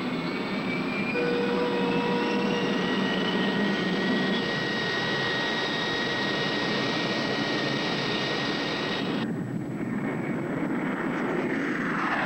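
Vought A-7 Corsair II jet engine running with a steady, dense roar and several high whine tones, one of them rising in pitch over the first few seconds. About nine seconds in the sound changes abruptly as the higher whine drops away, and near the end a tone falls in pitch.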